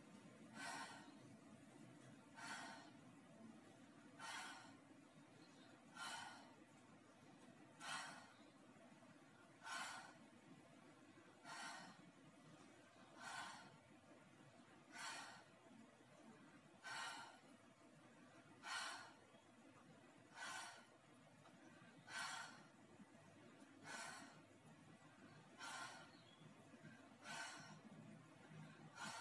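A woman's breathing during lunges: a short, forceful breath out about every two seconds in an even rhythm, one per repetition, over a faint steady hum.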